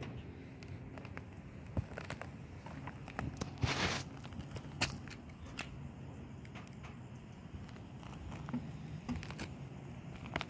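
Footsteps and handling on a flat roof's gritty, debris-strewn surface: scattered crunches and clicks, with one longer scraping crunch about four seconds in, over a low steady hum.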